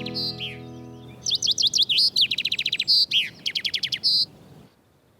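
A little bird singing in quick high chirps and trills, coming in as soft background music fades out in the first second; the song stops near the end.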